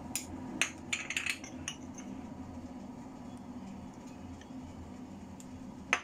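Spoon clinking and tapping against a ceramic dish as cornstarch is spooned over pork ribs: a quick run of light clinks in the first two seconds and one louder clink near the end. A low steady hum runs underneath.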